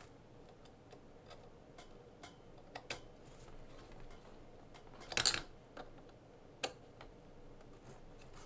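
Light, scattered clicks and taps of a small hand driver and screws as screws are tightened down on an RC drift car's front steering assembly, with a louder clatter about five seconds in.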